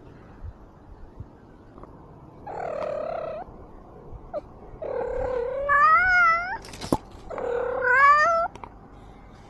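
A cat meowing three times: a short call, then two long drawn-out calls that rise in pitch at the end. A sharp tap falls between the second and third.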